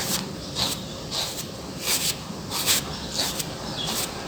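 A comb drawn through hair in repeated strokes, each a short scratchy brushing, at about one or two strokes a second.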